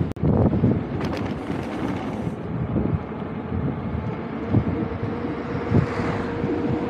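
Wind buffeting the microphone over the rumble and rattle of a mountain bike rolling along a mountain road, with a faint steady hum joining about three seconds in.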